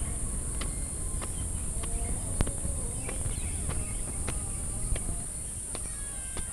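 Steady high-pitched drone of insects, with scattered sharp clicks and knocks, the loudest about two and a half seconds in.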